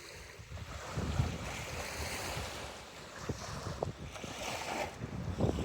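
Sea waves breaking and washing up a beach, swelling a couple of times, with gusty wind rumbling on the microphone.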